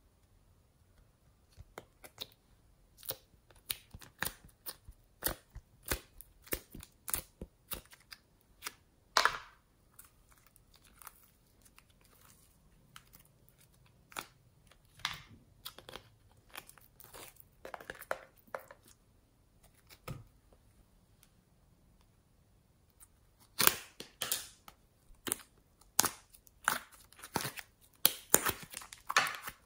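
Hands handling sticky slime and plastic containers: the slime peels, pops and crackles in scattered sharp clicks, quieter for a few seconds past the middle, then in a dense run of pops near the end as slime is pulled out of a clear plastic container.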